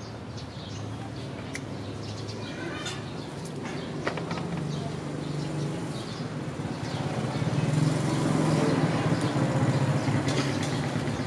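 A steady low engine hum that grows louder a little past the middle, with a few short high chirps about three seconds in.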